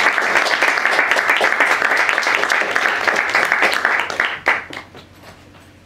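Audience applauding: dense handclapping that dies away about four seconds in, ending with a few scattered claps.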